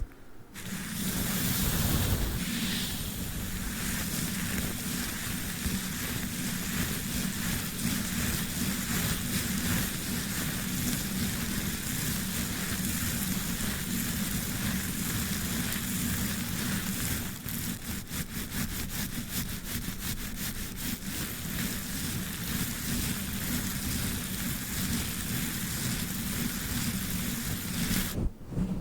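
A brush scrubbing directly over a microphone wrapped in tape: a continuous, loud scratchy rustle with a low rumble. For a few seconds past the middle it breaks into quick, separate strokes.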